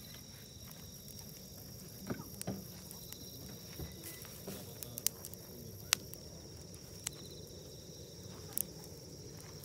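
Quiet outdoor summer ambience: a steady high insect chirring runs throughout, broken by a few sharp clicks or snaps, the last of them near the end.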